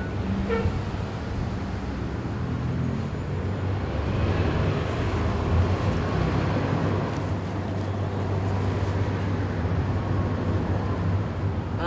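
City street traffic: a steady low rumble of passing vehicles, swelling as one passes around the middle.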